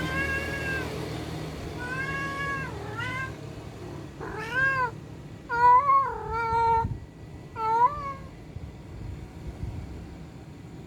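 Domestic cat meowing repeatedly, about six meows with pitch rising and falling over some eight seconds, one longer, wavering meow near the middle.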